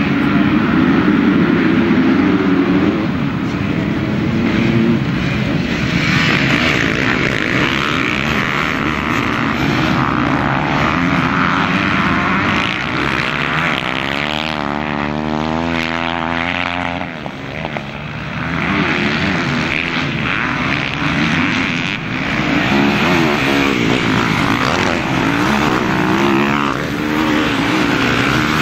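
A pack of motocross motorcycles racing at full throttle, many engines revving together as the field pulls away from the start and through the first turns. About halfway through, one engine's pitch sweeps as a bike passes close.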